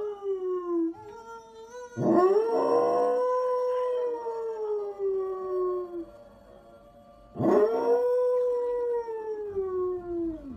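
Samoyed dog howling: one howl trails off about a second in, then come two long howls. Each rises sharply at the start and then slides slowly down in pitch.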